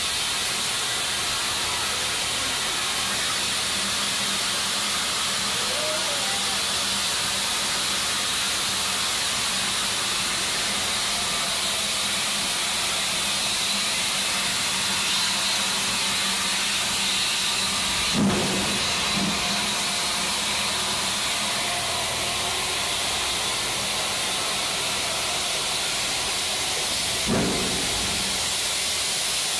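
Steam locomotive standing with steam hissing steadily from low down on the engine. Two short thumps, about two-thirds of the way in and again near the end.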